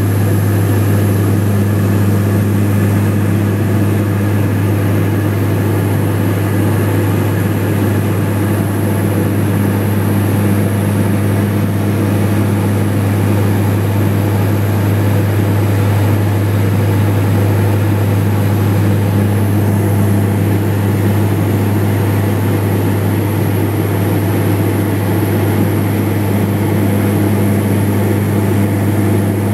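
Steady cabin drone of a small propeller aircraft in flight: a strong, constant low hum from the engines and propellers over a steady rush of air noise, with no change in pitch.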